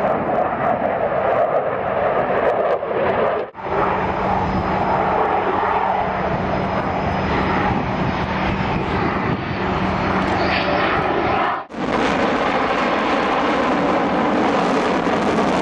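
Loud aircraft engine noise, broken by two abrupt cuts, with a steady low hum through the middle stretch.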